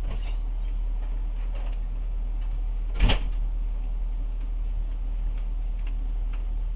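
Steady low hum inside a standing passenger train carriage, with scattered light ticks and one sharp knock about three seconds in.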